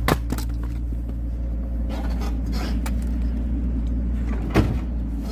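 A steady engine hum, with two sharp cracks of oak firewood being split: one just after the start and one about four and a half seconds in.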